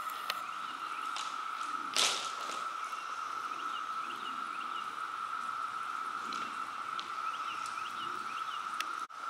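Water dripping inside a brick railway tunnel: a few scattered drips, the sharpest about two seconds in, over a steady high-pitched drone, with faint chirps now and then.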